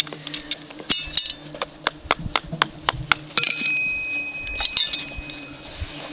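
A metal horseshoe and farrier's tools clinking as they are handled against a hoof: a quick series of sharp metallic clinks, one of which rings on for about a second about halfway through.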